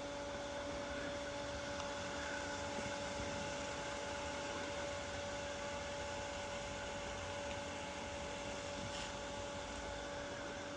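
Steady electric motor hum with a few fixed tones over an even hiss, unchanging throughout.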